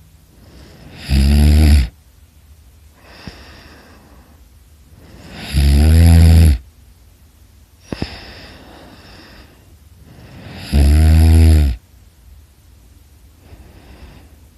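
A person snoring loudly: three heavy snores about five seconds apart, with softer breaths between them.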